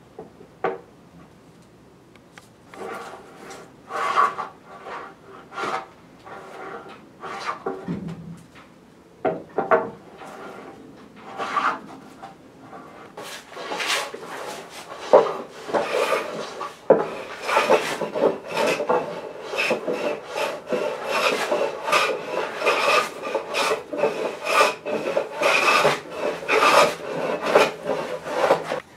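Strokes of a small wooden Japanese hand plane (kanna) shaving a timber bargeboard, each one a short rasping hiss of the blade cutting through the wood. The strokes are spaced out at first, then come quick and close from about halfway through as the board's curved edge is shaped.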